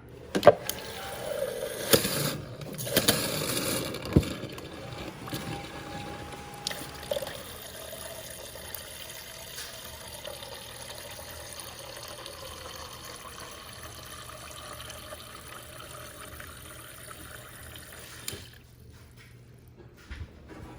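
Samsung refrigerator's water dispenser running a steady stream into a bucket, flushing out a newly installed water filter, with a few knocks in the first few seconds. The flow stops near the end.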